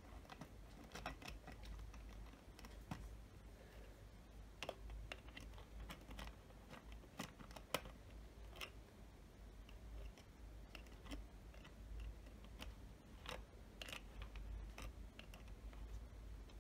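Faint, irregular taps and clicks of fingers and fingernails on a plastic water bottle and its cap and on a glass tumbler, with one sharper click a little before the middle.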